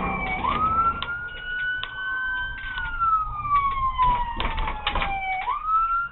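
Police siren in a slow wail: the pitch sweeps up quickly just after the start, holds high, glides down over about three seconds, then sweeps back up near the end. It is heard from inside the pursuing police cruiser, with scattered short clicks and knocks.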